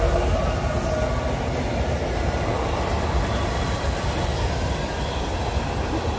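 Mixed manifest freight train passing close by: its diesel locomotives go by, then covered hoppers and tank cars roll past with a steady rumble of wheels on rail.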